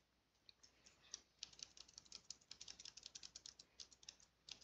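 Faint, rapid clicking of computer input, as on a keyboard and mouse, while marks are erased on a digital whiteboard. The clicks begin sparsely about half a second in and come several a second from about a second and a half in.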